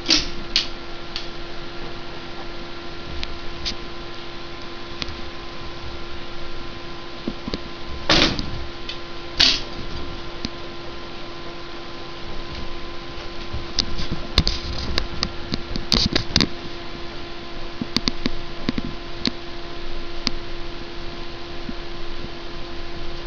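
Steady room hum with scattered light clicks and knocks, a cluster of them about two thirds of the way through, and two louder rustling thumps about a third of the way in.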